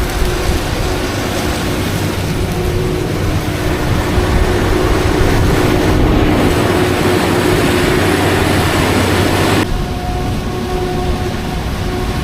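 Heavy farm machinery running steadily: a loud engine drone with a humming tone over a rushing mechanical noise. About ten seconds in it switches abruptly to a different, slightly quieter machine drone.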